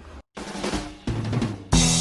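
Music with a drum kit: after a brief gap, drum hits and a bass line come in, and the full, louder band enters near the end.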